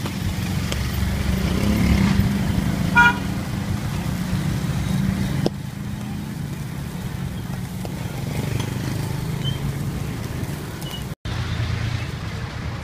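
Street traffic with motorbike and car engines running, and a vehicle horn sounding once, briefly, about three seconds in.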